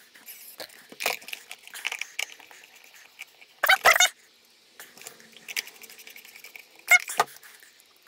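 Small screws being driven into the plastic cyclone housing of a Dyson DC59 vacuum, with scattered handling clicks and two short squeaks, about halfway through and again near the end.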